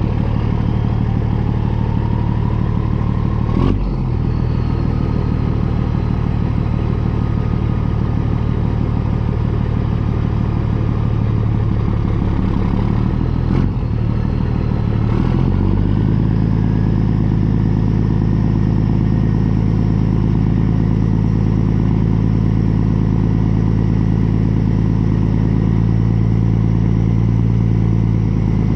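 Semi truck's diesel engine running steadily under way, with a rising whine over the first few seconds. A few short knocks come through at about four, fourteen and fifteen seconds, after which the engine settles to a lower, steadier pitch.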